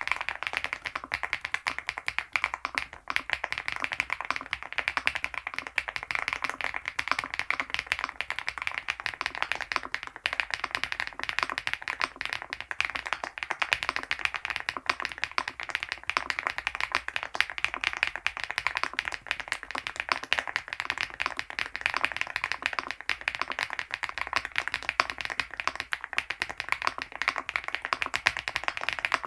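Continuous fast typing on an MCHOSE GX87 tenkeyless mechanical keyboard fitted with 80Retros x HMX FJ400 switches: a dense, even stream of key clacks.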